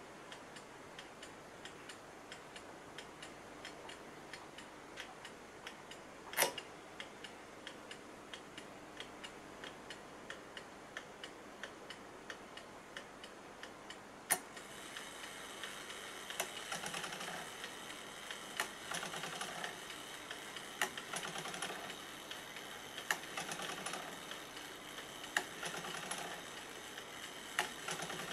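Empire Napoleon hat mantel clock movement ticking steadily, with one louder click about six seconds in. About halfway through, a click releases the strike train, which runs with a steady whirr and a louder stroke about every two seconds as it strikes ten o'clock.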